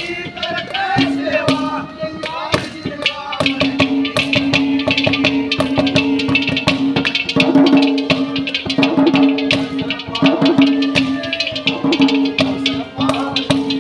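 Folk devotional music: a hand drum played in fast, dense strokes over a steady held note, with brief singing near the start and again near the end.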